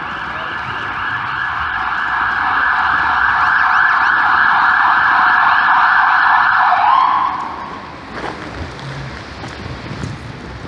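Ambulance siren sounding loudly, growing louder over the first few seconds, then cutting off about seven seconds in.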